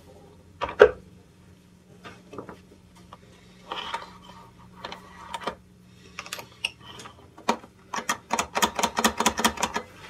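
Power cord being pulled out of a Siemens SynchroPower vacuum cleaner's retractable cord reel, ending in a fast run of clicks, about eight a second, near the end. A loud knock about a second in as the vacuum is set down on the wooden bench, with scattered handling clicks between.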